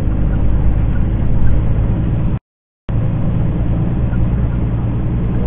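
Semi-truck diesel engine running steadily under load at low speed, with road noise, as heard inside the cab. The sound cuts out completely for about half a second partway through, then resumes unchanged.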